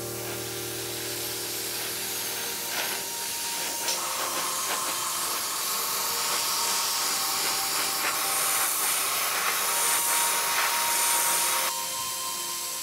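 Gravity-feed dual-action airbrush spraying paint: a steady hiss of compressed air that gets a little louder through the spray, then drops in level about a second before the end.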